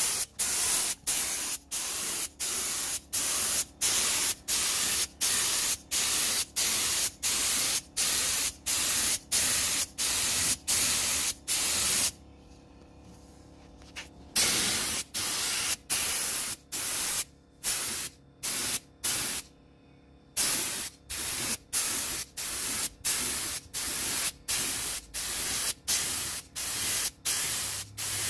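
Compressed-air gravity-feed paint spray gun hissing in short trigger bursts, about two a second, as paint is sprayed on in quick passes. The bursts stop for about two seconds near the middle, then go on at the same pace.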